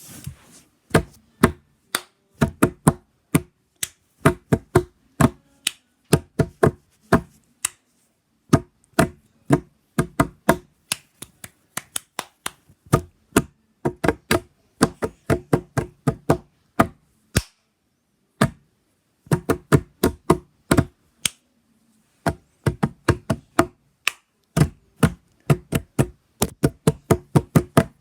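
Sharp knocks and taps with a short ringing tone, struck in a quick rhythm, in phrases broken by brief pauses.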